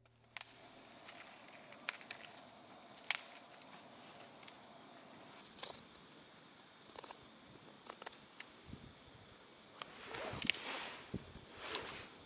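Small objects being handled up close: a string of sharp clicks and light knocks at irregular intervals, with a brief rustle about ten seconds in.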